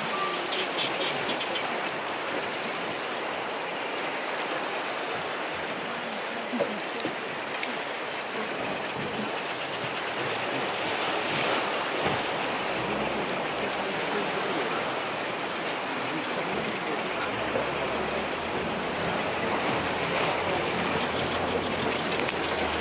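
Sea surf washing against a rocky islet: a steady rush of breaking waves. Short high seabird calls repeat over it during the first half, and a low rumble joins in over the last few seconds.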